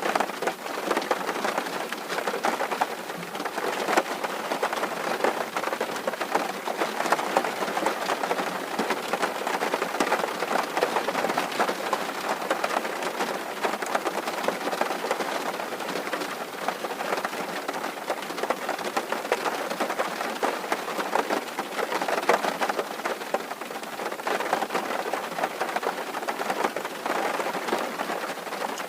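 Steady rain pattering on a tin roof: a dense, even patter of countless drops on metal sheeting.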